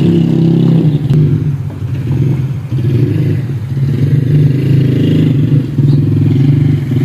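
An engine running steadily close by, a low, evenly pulsing sound that eases a little around two to three seconds in.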